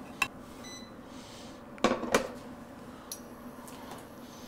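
Frying pan and spatula clinking against a ceramic plate as an omelette is slid out onto it: a light clink, then two sharp clinks a fraction of a second apart, each leaving the plate ringing briefly, and a few faint ticks after.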